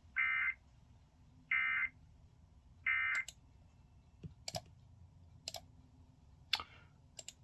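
Emergency Alert System end-of-message data tones: three short bursts of warbling digital tone about a second apart, the 'NNNN' code that closes an EAS activation. A few sharp clicks follow.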